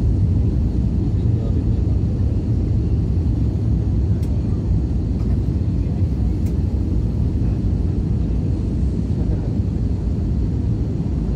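Steady low rumble of an Airbus A321's engines and airflow heard from inside the passenger cabin, with a couple of faint clicks.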